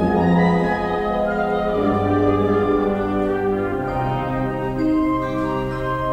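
Wind band playing music: sustained chords, with held notes moving from one to the next.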